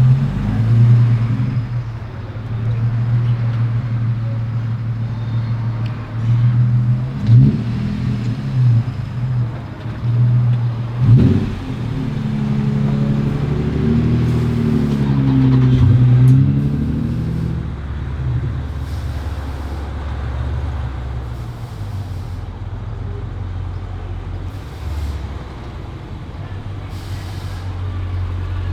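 2016 Dodge Challenger Scat Pack's 392 HEMI V8 running steadily, blipped up briefly twice, about 7 and 11 seconds in. The mid mufflers are still in place.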